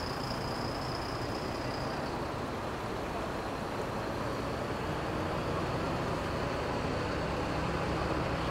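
Diesel engines of heavy multi-axle lorries running steadily as the refuelled trucks pull away from the fuel pumps, a low drone that grows slightly louder toward the end. A thin high whine fades out about two seconds in.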